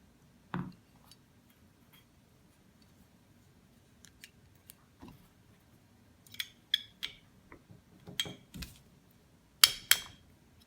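Light metal clicks and clinks of a steel punch, pin and pistol slide being handled as the extractor pin is worked out of a CZ52 slide. The clicks are scattered and sparse, with a small cluster about six to seven seconds in and two sharper clicks near the end.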